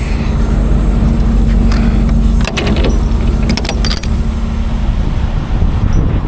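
Steady low rumble of an idling diesel engine, with a quick run of sharp metal clanks about two and a half to four seconds in as the reefer trailer's rear door lock handle and lock rod are worked.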